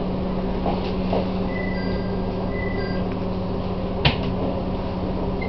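Chichibu Railway 1000 series electric train standing with a steady low electrical hum. A single sharp click sounds about four seconds in.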